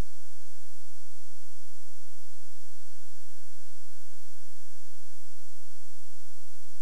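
Steady electrical hum and hiss on the recording, with a thin high whine held at one pitch throughout.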